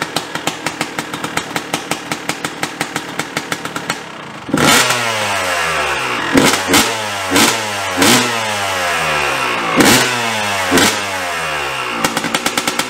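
Yamaha YZ250 two-stroke dirt bike engine idling with a fast, even popping beat. About four and a half seconds in it breaks into a string of sharp throttle blips, each rev falling away, then settles back to idle near the end. It is loud and popping through a dented stock silencer whose packing the owner doubts has ever been renewed.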